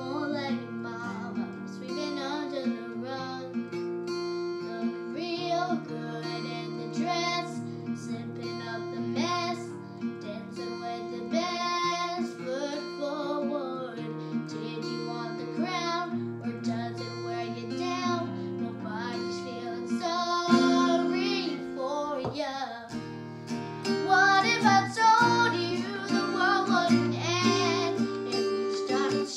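A young girl singing a pop-country song, accompanied by an acoustic guitar. Her singing grows louder and higher near the end.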